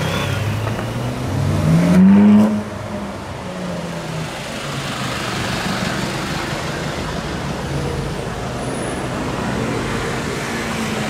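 Ferrari 458 Spider's 4.5-litre V8 revving once, rising quickly in pitch about two seconds in and then cutting off abruptly, followed by steady engine and street traffic noise as the car crawls in slow traffic.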